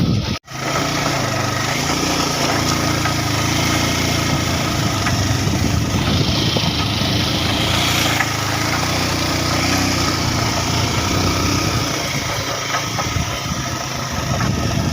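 Vehicle engine running under load on a rough dirt road, its pitch rising and falling as the revs change. The sound cuts out completely for a moment about half a second in.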